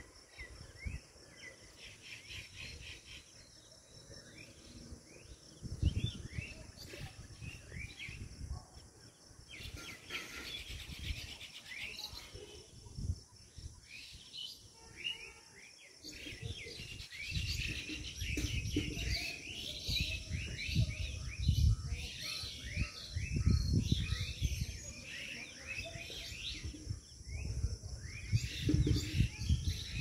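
A chorus of birds chirping and calling from the treetops in quick repeated notes, busiest in the second half, over a steady high insect drone. Low rumbling gusts, like wind on the microphone, come and go and are loudest in the second half.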